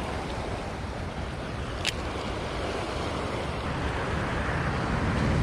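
Steady rush of a fast river current mixed with highway traffic noise, with some wind on the microphone. A single sharp click sounds about two seconds in.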